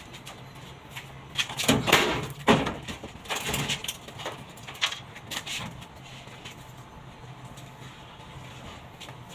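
Irregular knocks, scrapes and clatter from handling and working on a washing machine's sheet-metal body, loudest in a cluster from about 1.5 to 5.5 s, over a steady low hum.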